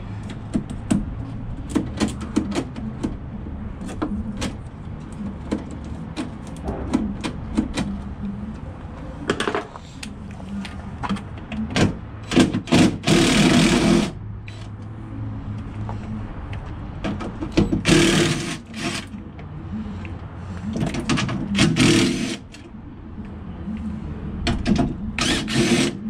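Cordless drill run in four short bursts of a second or two, backing out screws from a truck's steel door panel, with clicks and knocks of hand tools and metal parts between the runs. A low steady hum lies underneath.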